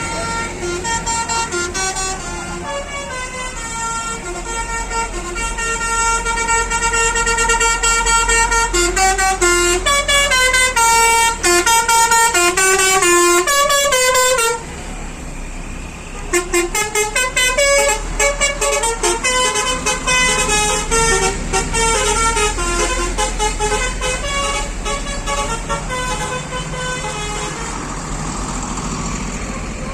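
Buses' Basuri telolet horns playing rapid multi-note tunes, one melody after another, over the low rumble of bus engines. The horns cut off abruptly about halfway through and start again a second or so later.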